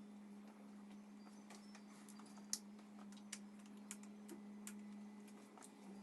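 Near silence: a steady low hum with a few faint, irregular clicks in the middle.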